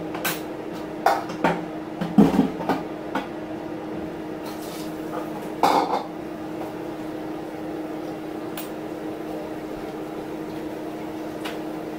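Pots and pans clattering: a run of knocks and clinks in the first three seconds and one more about six seconds in, over a steady hum.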